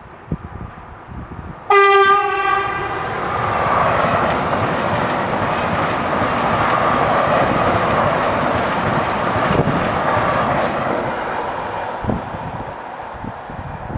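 A passing train gives one short horn blast about two seconds in, then goes by with a steady rushing rail noise that lasts about ten seconds before fading away.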